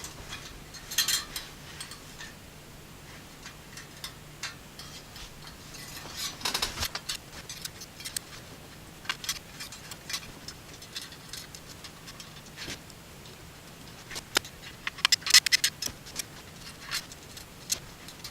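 Light metallic clicks and clinks of bicycle spokes and a spoke nipple being handled while a spoke is threaded through a BMX wheel and its nipple fitted. The clicks come irregularly, with small clusters about a second in, around six seconds in and again near the end.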